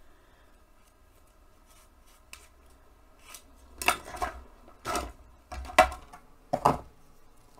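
Short scrapes and taps of a paint stick and sponge roller against the ink jar and palette as orange ink is loaded onto the roller. Quiet for the first few seconds, then about five sharp sounds roughly a second apart.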